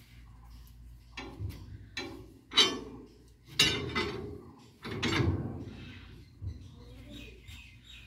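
A steel wheel brace and socket being worked on a tractor trolley's wheel nuts: a few sharp metal clanks and scrapes, the loudest about two and a half seconds in.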